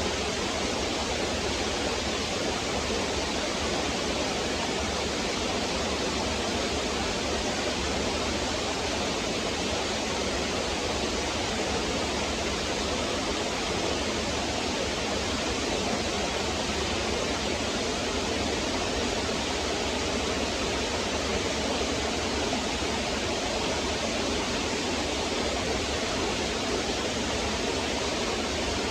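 Stream water flowing and splashing over rocks in a steady, even rush.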